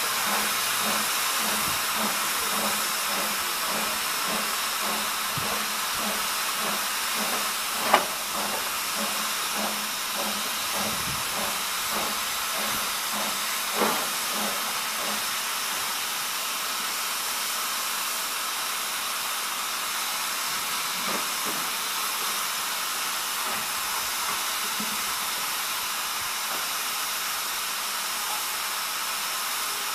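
1918 Henschel 0-4-0 narrow-gauge tank steam locomotive hissing steam steadily, with a soft rhythmic beat about twice a second that fades out after about twelve seconds. Two sharp metallic knocks come about eight and fourteen seconds in; the first is the loudest sound.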